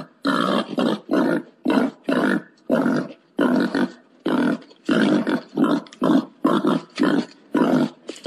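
Wild boar calling in a rapid run of short grunting calls, about two a second. It is a boar's mating call, the kind played as a lure to call boar in.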